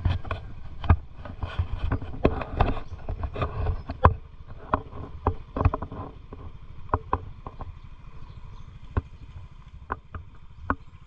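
Small motor scooter engine running at low speed, with frequent sharp knocks and rattles as the bike jolts over a rough dirt track. The knocks are thickest in the first four seconds and thin out after.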